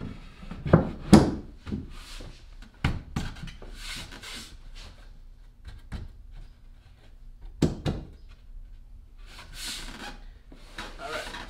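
Plywood seat top being set down and shifted on its wooden seat frame: several hollow wooden knocks, the loudest about a second in and again near eight seconds, with wood sliding and rubbing on wood in between.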